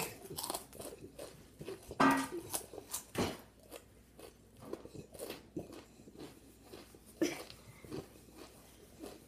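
Spicy Doritos chips being crunched and chewed in a man's mouth close to the microphone, an irregular run of small crackly crunches, with a few louder puffs of breath blown out through pursed lips against the heat.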